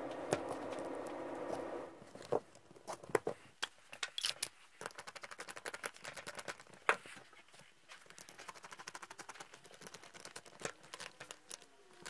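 Irregular light clicks and knocks of small metal motor parts being handled and fitted together: the rotor shaft, stator and end bracket of a draft inducer motor going back together by hand. A steady background noise runs for the first couple of seconds and cuts off suddenly.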